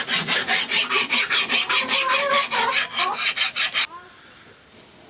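Rasp scraping along a bamboo bow limb in quick back-and-forth strokes, about five a second, stopping abruptly about four seconds in.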